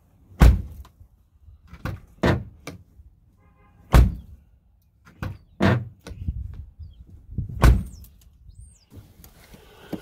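Pickup truck door being swung shut again and again: a series of loud thuds, the loudest about half a second, four and nearly eight seconds in. The door is closing on its sprung hinges after they were bent back into place.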